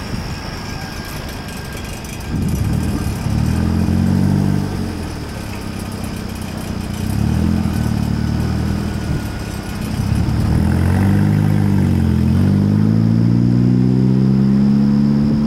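Diesel locomotive air horn sounding the long, long, short, long grade-crossing signal. The last blast is held longest and rises slightly in pitch.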